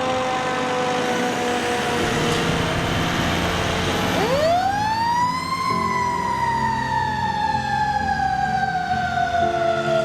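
Fire engine siren sounding loud and steady. It slowly falls in pitch, then about four seconds in winds sharply back up and slowly falls again.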